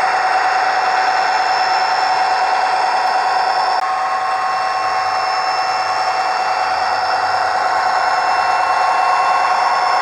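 Simulated EMD 20-cylinder diesel engine sound from the ESU LokSound decoder in a KATO HO-scale SD45 model, played through the model's small speaker: the engine running steadily with a thin, high whine over it. The sound dips slightly about four seconds in.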